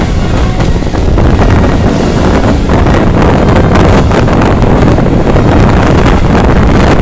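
Wind buffeting a microphone held out of a moving train carriage's window, over the low rumble of the train running along the track.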